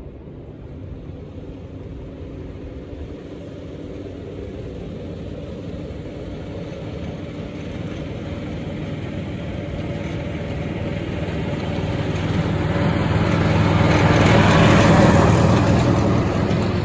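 Diesel engine of a miniature-railway locomotive running steadily as it hauls a passenger train towards the listener. It grows gradually louder and is loudest as the train passes close by near the end.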